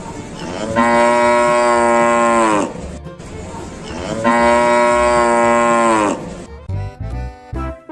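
Cow mooing twice: two long calls of about two seconds each, dropping in pitch as each one ends.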